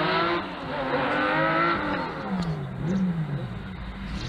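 Rally car engine revving hard, its pitch climbing several times in steps as it goes up through the gears. Then the pitch falls, rises once more and falls again.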